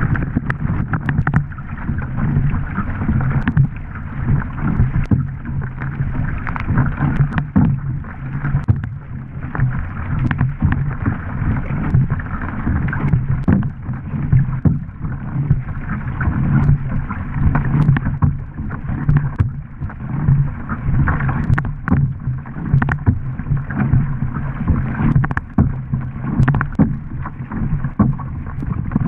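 Surfski being paddled hard: water rushing along the hull under the bow, with repeated splashes of the wing-paddle blades entering and leaving the water on alternate sides.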